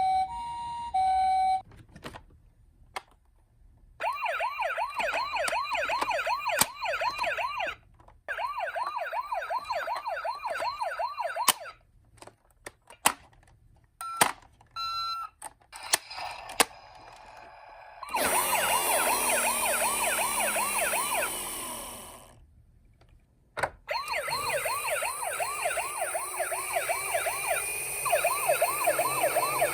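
Electronic sirens of toy emergency-vehicle minicars sounding one after another. A short two-tone hi-lo ambulance siren opens, then spells of fast warbling siren. Around the middle come some clicks and short beeps, then a siren that falls in pitch and fades out, and another warbling siren near the end.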